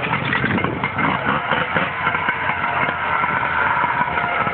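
Portable fire pump engine running steadily.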